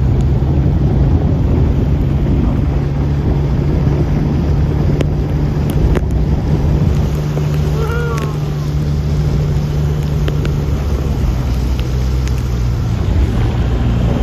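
Outboard motor of a small inflatable boat running steadily under way, a low hum that shifts slightly in tone about eleven seconds in, over the rush of water and wind on the microphone.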